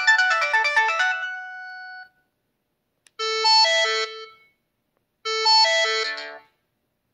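Samsung SPH-A660 flip phone playing ringtones through its speaker: one synthesized melody dies away in the first two seconds, then after a pause a short phrase of notes plays twice with a brief gap between.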